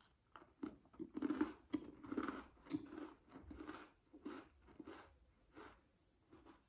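Mouthfuls of crunchy Oreo sandwich cookie being bitten and chewed close to the microphone, about two crunching chews a second, growing fainter near the end.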